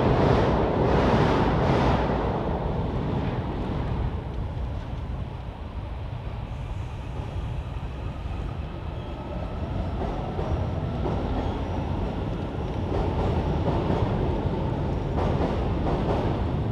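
Seoul Subway Line 1 electric train running on the Hangang Railway Bridge: a rumble of wheels on rails, loud at first with a quick run of clacks. It dies down after about two seconds and builds again through the second half.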